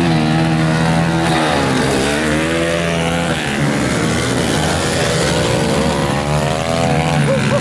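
Several dirt bike engines revving on a motocross track, their pitch rising and falling repeatedly as the riders open and close the throttle and shift.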